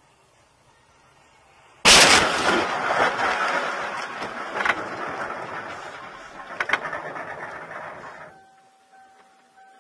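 Vehicle collision: a sudden loud crash about two seconds in, then a rush of noise that fades over several seconds, broken by a couple of sharp knocks. It stops abruptly, and a steady high tone comes in near the end.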